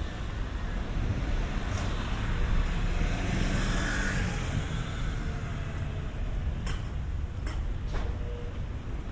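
Road traffic passing close by: a small car and a motor scooter go by, their tyre and engine noise swelling to a peak about four seconds in and then fading. A low wind rumble on the microphone runs underneath, and a few sharp clicks come near the end.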